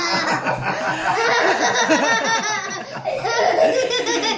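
A young boy laughing hard, a long run of quick repeated laughs.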